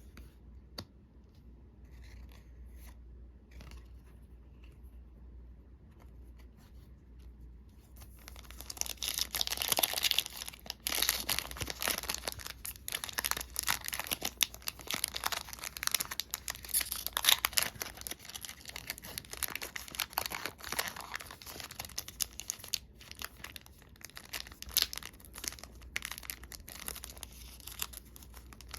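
Plastic Magic: The Gathering booster pack wrapper being torn open and crinkled. Light handling clicks at first, then from about eight seconds in a steady run of crackling, tearing and crinkling.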